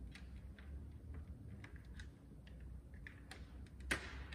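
Light plastic clicks and rattles as a car's plastic front grille is handled and its parts are unclipped, with one sharper snap about four seconds in, over a low steady hum.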